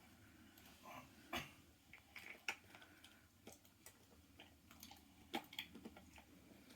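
A dog nosing and pawing at a treat puzzle toy: scattered light clicks and knocks of the pieces, a few at a time.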